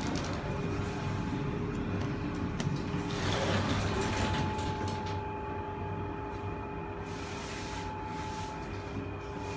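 1998 Schindler freight lift heard from inside the car: its sliding doors close in a swell of noise about three to four seconds in. A steady hum with a higher whine follows as the car runs.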